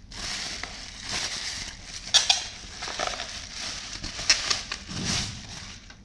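Plastic bubble wrap crinkling and crackling as it is pulled off a computer power supply unit, with a few sharper crackles about two seconds and four seconds in.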